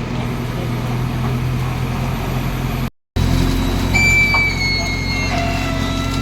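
Heavy diesel machine engine running steadily. The sound cuts out briefly about three seconds in, then comes back louder with high, thin squealing tones over it.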